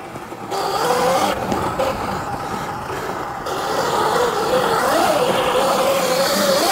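Dirt bike riding along a dirt trail, its motor note rising and falling with speed over wind and tyre noise.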